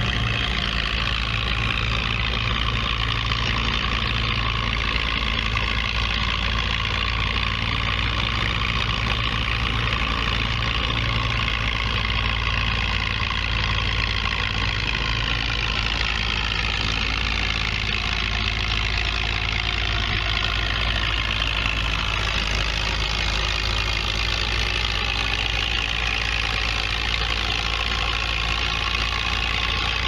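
Case 800 tractor's propane engine running steadily under load while pulling a plough.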